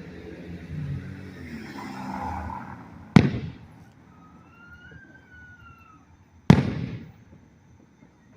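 Fireworks exploding: two sharp booms about three seconds apart, each trailing off in an echo, with a faint high whistle rising and falling between them.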